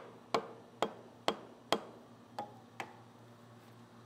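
Sharp metallic clicks at the spindle of a radial drill as a large taper-shank twist drill is fitted, about two a second, seven in a row, each ringing briefly, the last two fainter.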